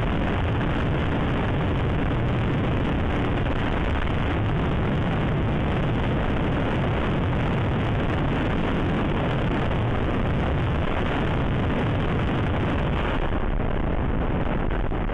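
Steady rush of wind over the microphone of a camera on a TVS Ntorq 125 scooter running near its top speed, about 100–110 km/h. The level stays even throughout, with no distinct engine note standing out.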